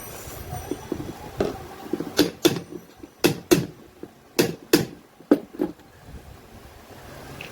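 Sharp knocks in quick pairs, four pairs about a second apart, with a few lighter taps before them.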